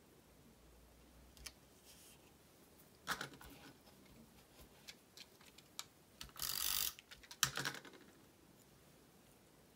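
Hands handling small die-cut metallic-paper tree pieces on a craft mat: faint paper rustles and light taps, with the longest and loudest rustle about two-thirds of the way through.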